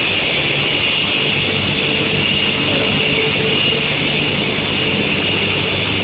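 Steady running noise of an induction steel-sheet heating line: a constant high-pitched whine over a low hum, with no breaks or changes.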